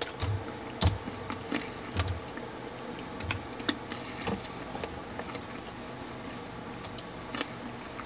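Computer keyboard keys being typed in quick irregular clicks for about four seconds, then a few more clicks near the end, over a faint steady high hiss.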